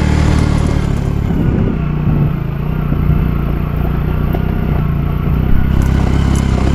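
Motorcycle engine running as the bike is ridden over a rough off-road track, its note wavering briefly about two seconds in.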